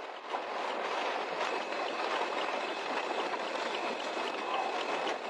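Steady rushing of strong storm wind near a wedge tornado, building over the first second and then holding. A faint high steady tone sits behind it from about a second and a half in until near the end.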